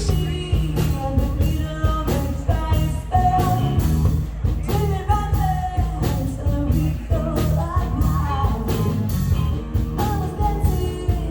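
Background rock music with a sung vocal and a steady beat.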